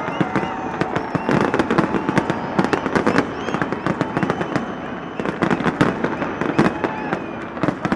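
Aerial fireworks bursting in quick, irregular succession, with many sharp bangs and crackles each second.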